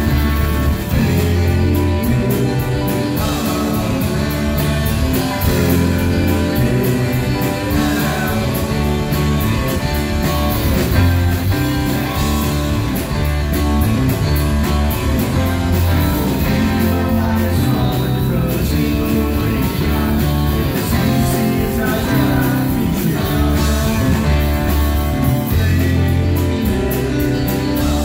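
Rock band playing live, with electric guitars and a drum kit over a steady low bass line that changes note every second or so, recorded from in front of the stage.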